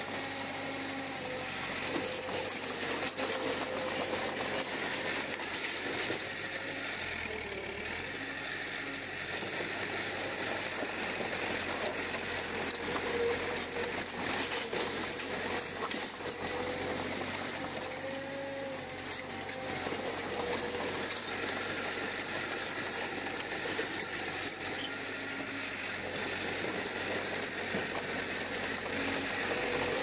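Komatsu D31P bulldozer's diesel engine running steadily, with a continuous metallic rattling and scattered clicks over it.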